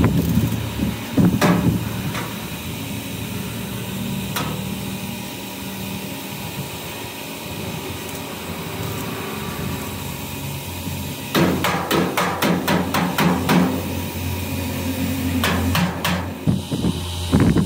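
Hammer blows in a truck repair workshop: a few single strikes in the first five seconds, then a quick run of about ten strikes a little past halfway, and a few more near the end. A steady low machine hum runs beneath.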